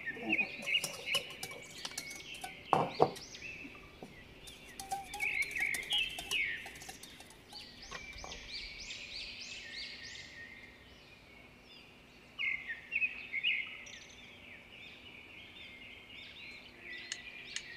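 Small birds chirping over and over in quick, high chirps. A few sharp knocks and clinks of cookware come in the first few seconds, the loudest about three seconds in.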